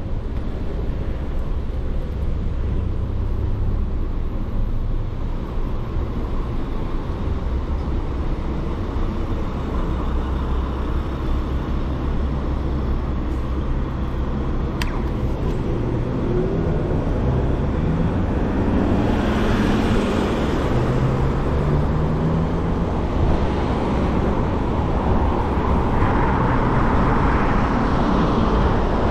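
Road traffic on a city avenue heard from a moving scooter: a steady low rumble with cars going by, one vehicle passing close about twenty seconds in, and the traffic growing a little louder near the end.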